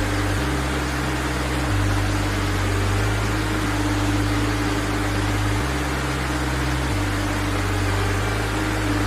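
Background music with slow, held bass notes that change every second or two under a steady, even hiss.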